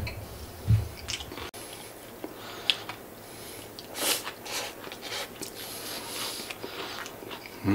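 A person chewing crisp-coated Japanese fried chicken (karaage), with irregular crunches of the coating.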